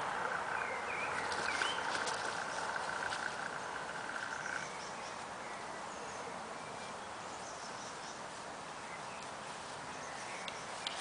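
Outdoor garden ambience: a steady high-pitched, finely pulsing buzz that stops about four and a half seconds in, with a few short bird chirps scattered through.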